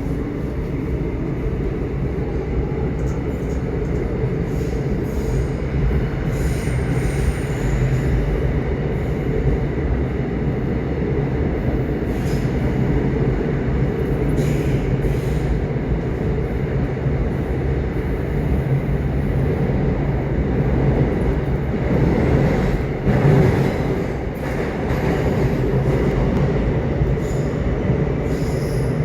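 Subway train running: a steady low rumble of the wheels on the track, with faint high wheel squeal and a few brief clicks of the rail joints.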